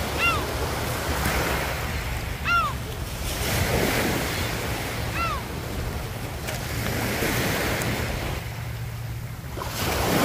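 Small waves washing onto a pebble beach, swelling and ebbing, with wind on the microphone. Three short high calls, each rising then falling in pitch, come about two and a half seconds apart in the first half.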